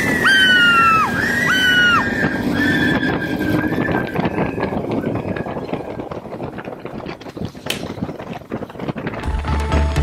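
Motorcycle ride with wind and road noise. Early on there are two short high-pitched calls, each falling away at its end. Background music with a steady beat comes in near the end.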